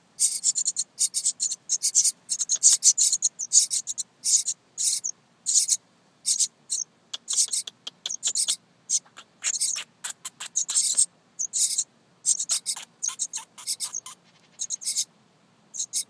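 Nestling birds in a birdhouse begging, giving high-pitched, hissy calls in quick repeated bursts that thin out near the end.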